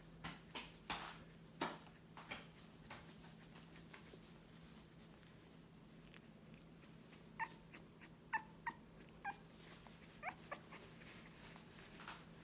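Young Staffordshire bull terrier puppies whimpering: about half a dozen short, faint squeaks in the second half, with a few soft clicks earlier on.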